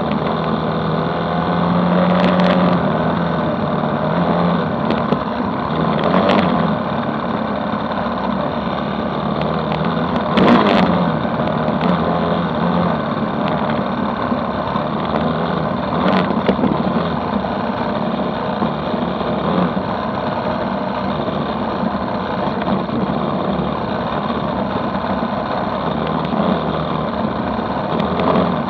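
Motorcycle engine running steadily at speed under the rider, mixed with wind rush, with four brief knocks spread through.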